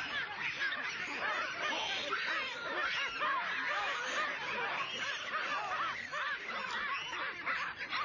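A troop of baboons screaming and barking in alarm, many short high calls overlapping without a break.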